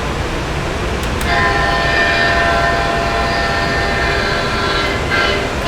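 Leslie SL4T locomotive air horn blowing a long, steady multi-note chord, starting about a second in.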